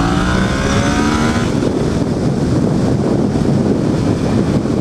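Yamaha FZ-07's parallel-twin engine accelerating, its pitch rising for about a second and a half before the tone breaks off. After that a loud rushing rumble of wind on the microphone covers the engine.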